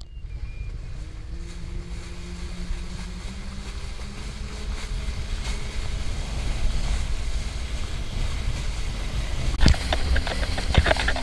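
Small boat's motor running with a steady low rumble and hum, wind buffeting the microphone. About ten seconds in, water starts splashing and spraying against the hull close by.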